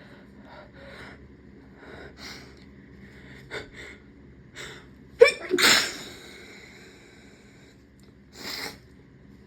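A person sneezing once, loudly, about five seconds in, with a voiced catch leading into the burst. The sneeze is induced by tickling the nose with a rolled-up tissue. Several short, faint breathy sounds come before it, and another one follows near the end.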